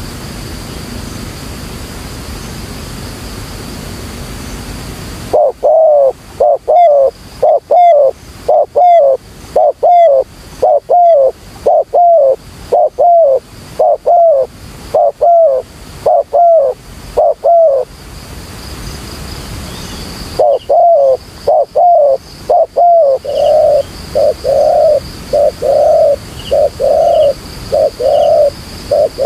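Spotted dove calling: after about five seconds of steady hiss, a run of short, loud coos comes about two a second. The coos pause for a couple of seconds in the middle, then resume as longer, fuller coos.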